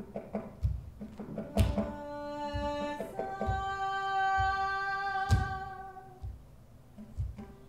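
Live Indian-style music: irregular, deep hand-drum strokes, with a voice holding a long sung note for a few seconds in the middle.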